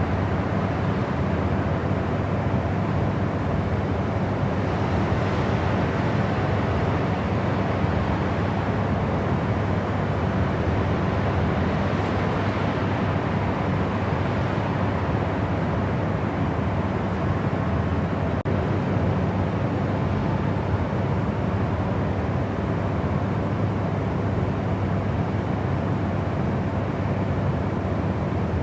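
Steady white noise for sleep: a constant, unchanging rushing hiss, heaviest in the low end.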